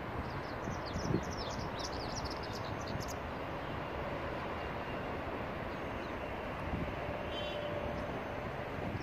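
Steady outdoor rumble and hiss of distant traffic and wind, with a quick run of high bird chirps in the first three seconds.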